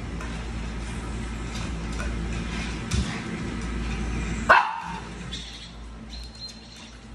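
A small dog barking, with one sharp bark about four and a half seconds in and a softer one shortly before, over a steady low hum.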